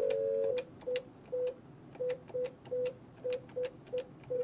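Cisco 7975 IP desk phone's keypad being pressed digit by digit to enter a number. Each key press gives a click and a short beep, about ten in all at an uneven pace. The first beep is longer, about half a second, and two-toned.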